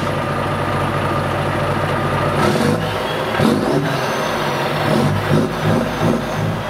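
Volvo FH540 truck's 13-litre straight-six diesel engine running steadily, a deep, even engine note with a faint thin whistle over it in the middle.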